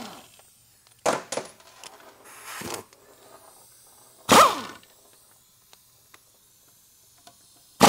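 Half-inch pneumatic impact gun with a Torx bit, firing in short bursts to undo transmission pump bolts: about four brief bursts, the loudest about four seconds in, dropping in pitch as it spins down. A faint hiss of air leaks from a worn fitting on the gun between bursts.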